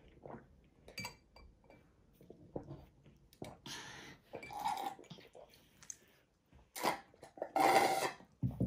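Sucking drinks through plastic straws from glass tumblers: soft sips and small clinks of glass, then loud slurping near the end as a glass runs nearly empty and air is drawn up the straw.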